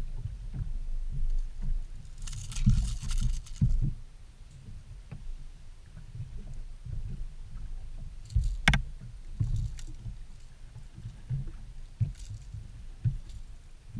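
Water slapping and knocking against a small boat's hull in low, uneven thumps. A burst of hiss comes a couple of seconds in, and a single sharp click comes about two-thirds of the way through.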